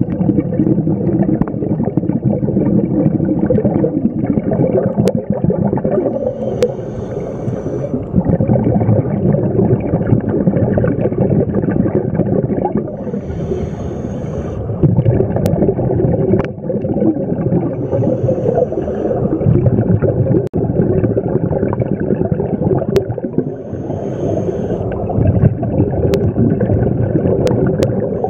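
Scuba regulator breathing recorded underwater: a short hiss of air through the demand valve about every five seconds, with a steady muffled gurgling rumble of exhaled bubbles.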